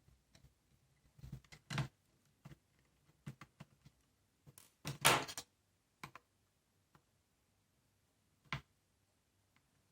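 Laptop parts being handled during assembly: scattered small clicks and knocks of hard plastic and metal, a brief scraping rub about five seconds in, and a single knock near the end.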